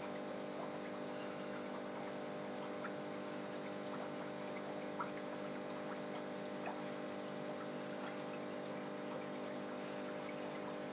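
Aquarium pump running with a steady hum, under the light trickle of moving water with small scattered drips.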